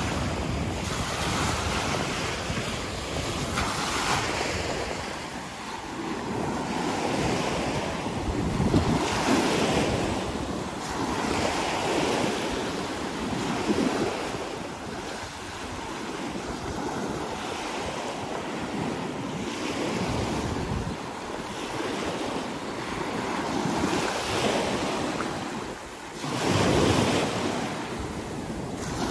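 Small sea waves breaking and washing up a sandy beach in foam, the surf swelling and falling back every few seconds, with wind rumbling on the microphone.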